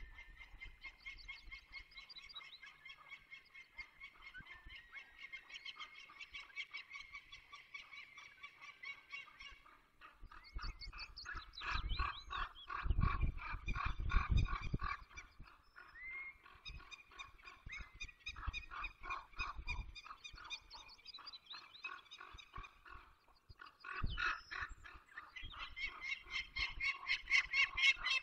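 Peregrine falcons calling: long runs of rapid, repeated harsh notes in several bouts with short breaks, getting louder near the end. A low rumble sits under the calls in the middle of the run.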